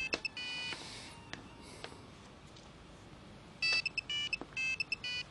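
Mobile phone ringtone: a high electronic beeping tune. It plays at the start, stops for about three seconds, then plays again near the end.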